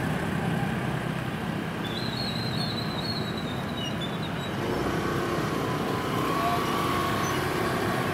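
Light street traffic: a few motorcycles and scooters passing along the road, over a steady hum of traffic noise.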